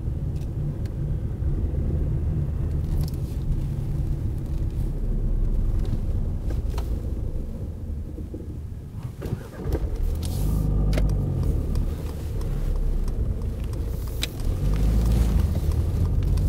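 Car cabin noise while driving: a steady low rumble of engine and road, heard from inside the car, easing briefly about halfway through, with a few scattered faint clicks.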